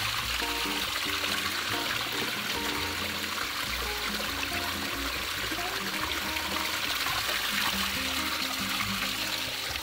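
Spring water trickling and splashing over rocks and into a plastic gallon jug as it is filled, a steady watery rush. Background music plays throughout.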